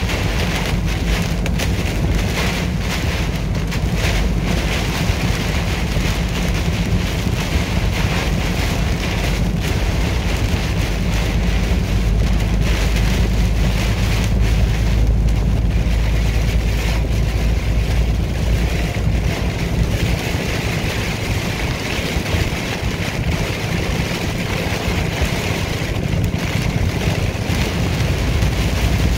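Semi truck's engine droning steadily with road noise inside the cab, driving through heavy rain, with rain and road spray washing over the cab and windshield.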